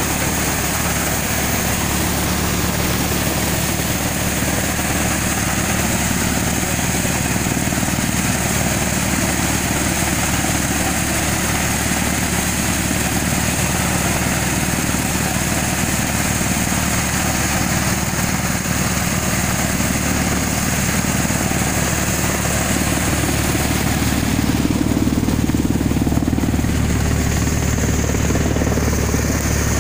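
Tractor-driven VKYU crop thresher running steadily under load as bundles of harvested stalks are fed into it. It makes a constant mechanical drone with a steady engine hum beneath, a little louder about twenty-five seconds in.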